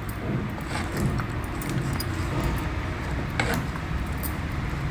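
Thick idli batter of ground rice and urad dal being mixed in a vessel: steady wet stirring with scattered small clinks and taps against the container.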